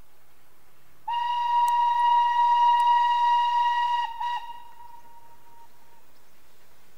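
Steam locomotive whistle: one long, steady blast of about three seconds, followed by a brief second toot.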